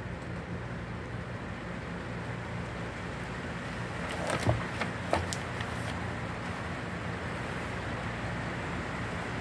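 A magazine page being turned: a brief rustle and a few sharp paper slaps about four and a half seconds in, over a steady low background noise.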